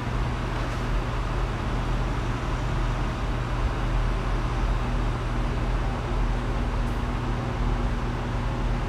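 Steady low droning background noise with hiss and a faint hum, unchanging throughout.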